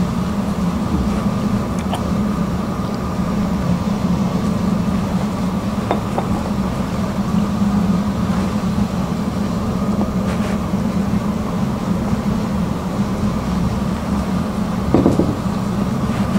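Steady machine hum of restaurant ventilation filling the room, with a few faint clicks and a short louder sound near the end.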